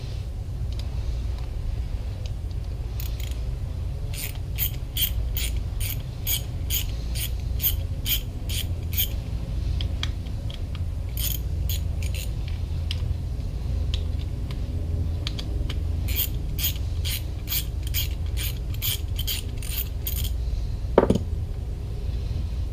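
Ratchet wrench clicking in runs of evenly spaced clicks, about three a second, as the bolts of an outboard fuel pump are undone, over a steady low hum. A single knock comes near the end.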